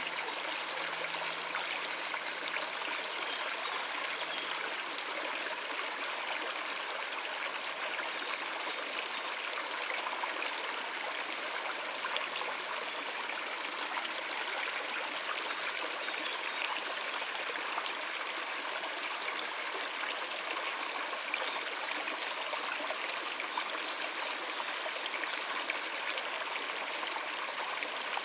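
Stream of water running steadily over rocks, an even, unbroken rush. A few brief, high bird chirps come through about three-quarters of the way in.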